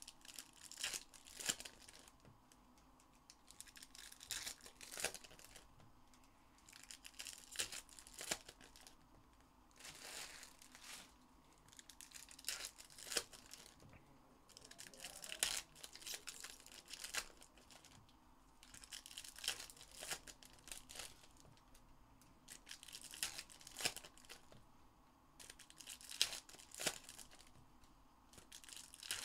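Foil trading-card pack wrappers being torn open and crinkled, pack after pack, in short rustling bursts about every three seconds.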